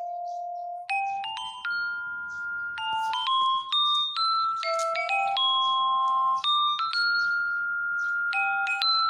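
Glockenspiel playing a tune: a string of bright, ringing notes that step up and down, some held for about a second.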